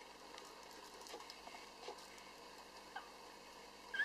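Newborn Lhasa Apso puppies nursing: faint rustling and small clicks, a soft short squeak about three seconds in, and a louder, high rising squeak from a puppy at the very end.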